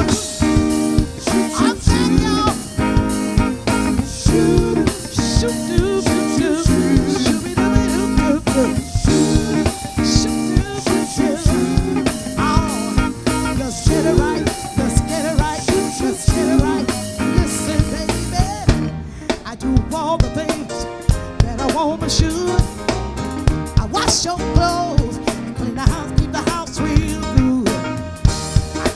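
Live band playing with a steady drum-kit beat and electric bass, under a woman singing lead into a microphone.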